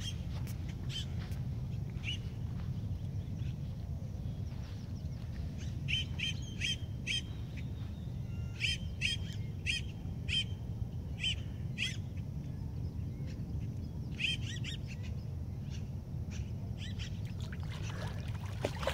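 Wild birds chirping in short, repeated calls that come in clusters, over a steady low rumble.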